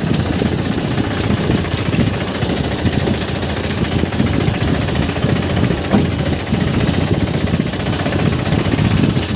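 Vehicle engine running while travelling over a rutted, muddy dirt road, with a rough, uneven rumble.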